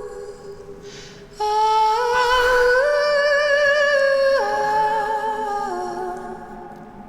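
A woman singing a slow wordless melody: long held notes with vibrato that step down in pitch. An audible breath comes about a second in, before the next phrase.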